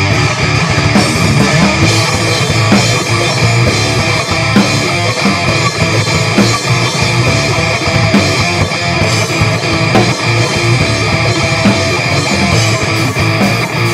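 Instrumental rock played on guitar and drum kit, from a basement demo recorded to cassette tape.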